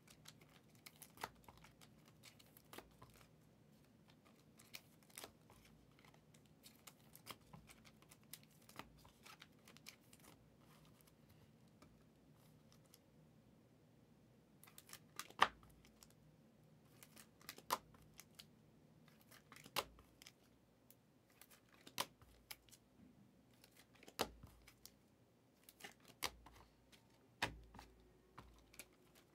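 Faint handling of trading cards: soft rustling and small clicks, with sharper taps about every two seconds in the second half.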